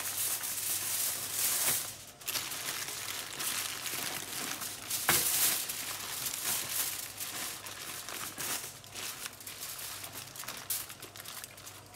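Oven parchment paper and aluminium foil crinkling and rustling as hands fold and press them around a joint of meat: an irregular rustle with sharper crackles, loudest about five seconds in.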